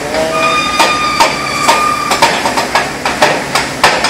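Repeated sharp metal-on-metal blows, about three a second and uneven, as of hammering on steel. A steady high, whistle-like tone is held for a couple of seconds in the first half.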